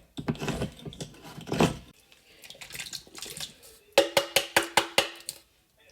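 Kitchen sounds of food going into a pot: a wet, scraping slide for the first couple of seconds. About four seconds in comes a quick run of seven or eight sharp clicks, with a faint ring under them.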